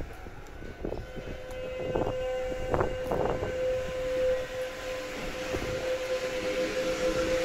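Kintetsu train's GTO-thyristor inverter giving a steady whine at one pitch from about a second in, over the rumble of the carriage, with a few knocks around two to three seconds in.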